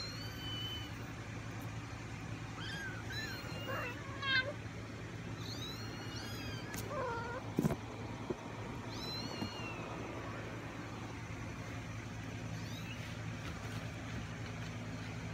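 Young kittens mewing: many short, high-pitched cries, some rising and falling in pitch, coming in clusters over the first ten seconds or so.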